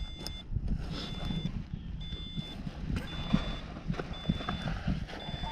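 An electronic beeper sounding a steady high beep about once a second, each beep about half a second long, over wind buffeting the microphone.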